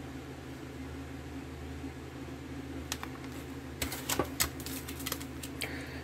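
Plastic ration packets being handled: a few short crinkles and clicks, mostly in the second half, over a steady low room hum.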